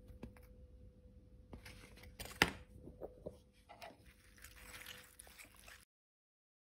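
Faint kitchen handling sounds: halved meatballs sliding off a paper plate into a crock pot of sauce, then a spoon stirring them, with a few light clicks and one sharp knock about two and a half seconds in. The sound cuts out near the end.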